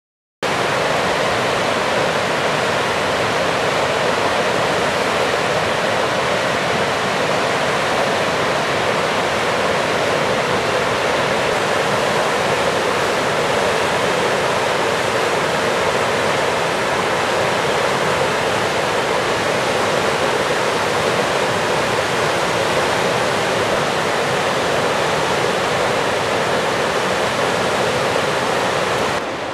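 River whitewater rapids rushing in a steady, loud, even roar. It starts abruptly about half a second in and drops slightly in level just before the end.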